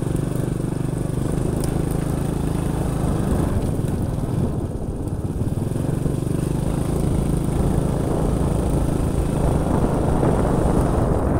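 Motorcycle engine running steadily while riding, with the broad noise of the ride growing louder near the end.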